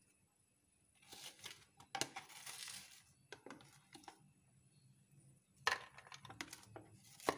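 Ice cream being scooped from its tub with a spoon and dropped into a blender jar of milk and ice: crinkly scraping and rustling in two spells, with a sharp knock near the end.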